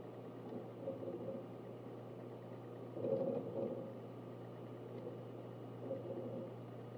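Synology DS1821+ eight-bay NAS running: a steady low fan hum, with short bursts of hard-drive activity about a second in, around three seconds in, and again near the end.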